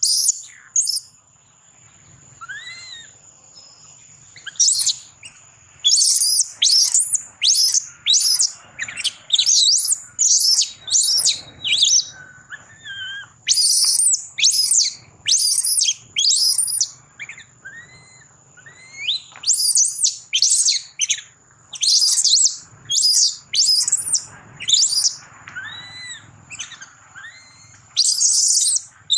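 Newborn macaque screaming in distress: runs of short, shrill cries, several a second, broken by pauses, with a few softer rising-and-falling calls between them.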